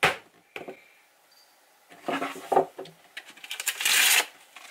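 A screwdriver working an electrical outlet cover plate off the wall: a sharp click at the start, a few light clicks, a short clatter about two seconds in, then a harsh scraping rasp of about a second as the cover plate comes free.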